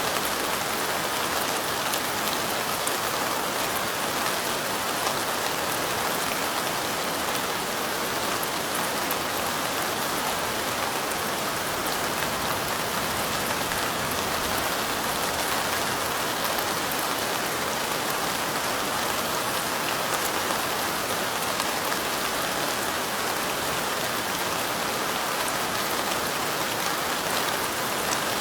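Light rain falling steadily: an even, unbroken hiss of many small drops, with fine drop ticks throughout.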